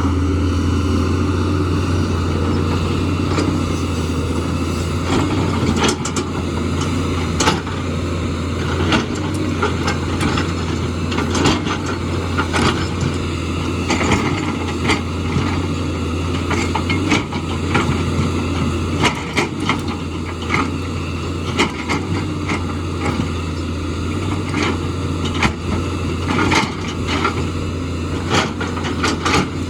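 JCB excavator's diesel engine running with a steady low drone, with frequent irregular sharp knocks and clatter throughout, typical of the machine working among rocks.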